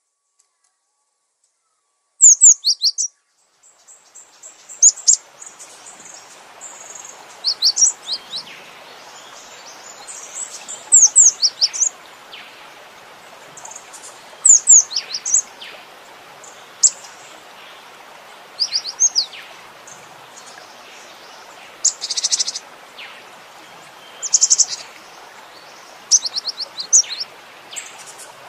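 Cinereous tit (gelatik batu) singing and calling: repeated bursts of high, quick chirps and short falling whistles every second or two, over a steady background hiss that comes in about four seconds in after a brief silence.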